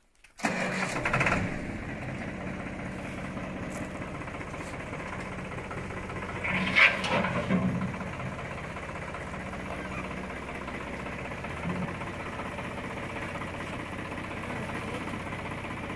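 A farm tractor's diesel engine starts about half a second in and settles into a steady idle, with a louder surge around seven seconds in.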